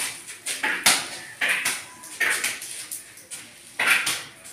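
Steel plastering trowel scraping over fresh cement plaster in repeated short strokes, roughly two a second.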